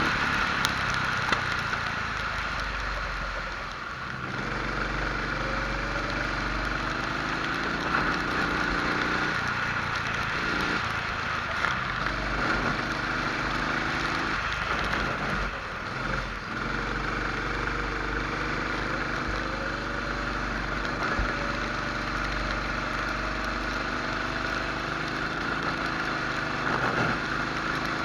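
Rental kart engine under race load, its pitch rising repeatedly as it accelerates and dropping back as it lifts for corners, with clear dips in revs about four seconds in and again around fifteen seconds. A steady hiss runs underneath.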